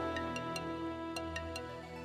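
Background music: a soft new-age style track with a low held pad and light bell-like notes struck a few times a second, slowly getting quieter.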